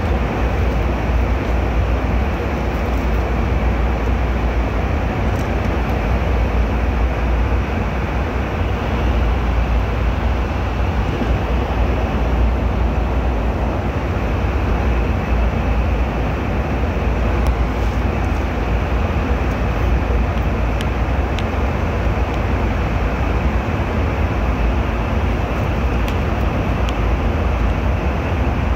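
Airliner cabin noise in flight: a steady, unchanging rush of engine and airflow noise, strongest in the deep bass.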